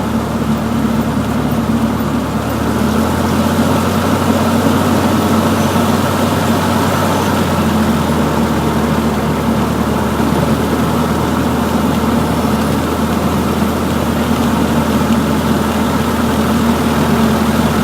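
Cessna 152's four-cylinder Lycoming engine running steadily at low power, its low note shifting slightly about three seconds in.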